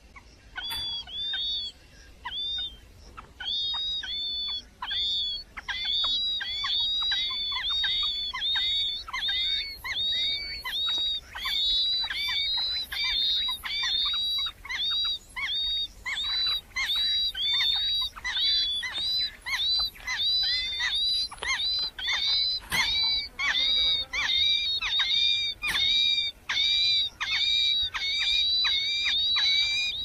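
Nestling songbirds begging for food: a long run of short, high cheeps that bend downward, sparse at first and then about two a second from a few seconds in.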